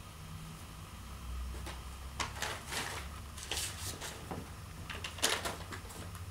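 Chinchillas scuffling: a run of short scraping and rustling noises, the loudest about two, three and a half, and five seconds in.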